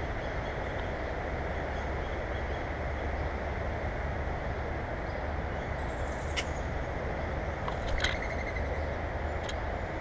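Steady low outdoor rumble with a few sharp taps and clicks on a wire-grid platform bird feeder, where a mourning dove is feeding on the seed; the loudest tap comes about eight seconds in.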